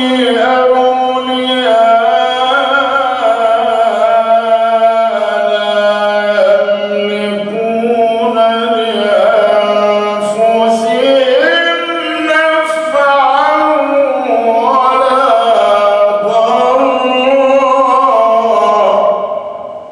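A man's voice reciting the Quran in a slow, melodic chant, drawing the words out into long ornamented phrases whose pitch slides up and down. The voice breaks off just before the end.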